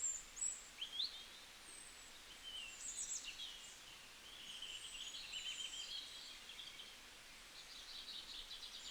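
Small songbirds chirping and singing, with high thin calls that overlap at different pitches and a couple of quick trills, over faint outdoor background noise.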